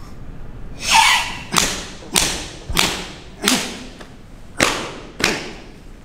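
Six sharp open-hand slaps on a karate student's bare skin, the teacher striking his tensed body to test the stance, with a forceful hissing exhale from the student just before the first slap.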